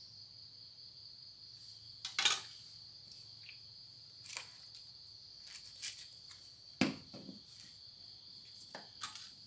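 Steady high-pitched chirring of crickets, with a few scattered sharp clicks and knocks, the loudest about two seconds in and again near seven seconds.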